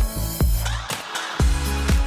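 Electronic dance music with a steady kick-drum beat. About halfway through, the kick and bass drop out briefly under a swelling hiss, then the beat comes back.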